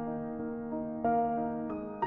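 Soft background music led by piano: gentle sustained notes and chords, a new note or chord struck about once a second.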